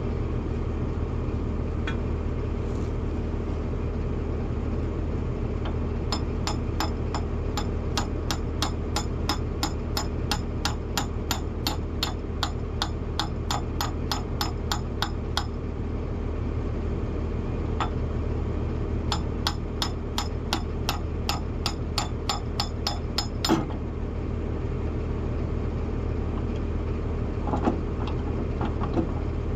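Hammer blows on steel, about three a second, in two runs of several seconds each, the second ending a little past two-thirds of the way in, over the John Deere 710D backhoe's diesel engine idling steadily.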